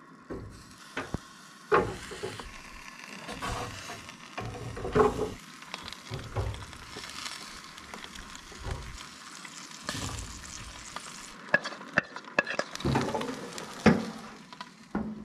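Food sizzling on a hot grill: oysters in garlic-butter sauce and oiled sweet peppers, a steady hiss with scattered clicks and knocks as food is set on the metal grate. The sizzle thins out near the end while the knocks go on.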